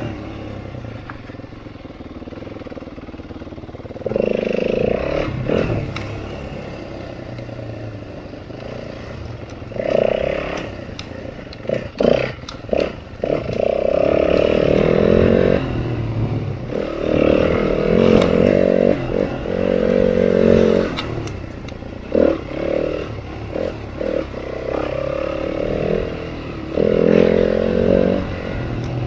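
Dirt bike's single-cylinder four-stroke engine ridden on and off the throttle, rising in short bursts again and again and dropping back between them, with knocks and clatter from the bike over rough ground.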